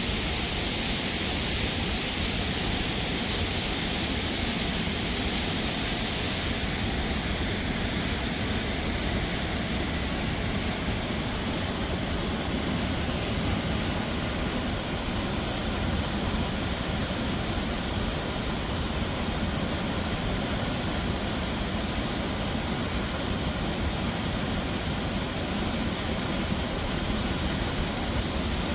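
Little Pigeon River in flood, its high water rushing by in a steady, loud wash of noise that makes it hard to hear.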